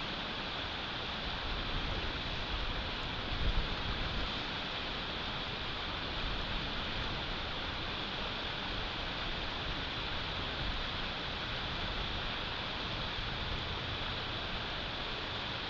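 Wind on an outdoor nest-cam microphone during a snowstorm: a steady rushing noise with a stronger low buffeting gust about three and a half seconds in.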